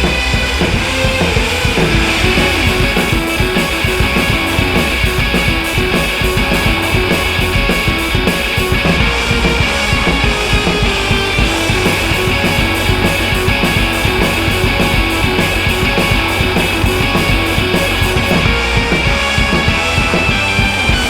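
Background music: upbeat rock with guitar and drums and a steady beat.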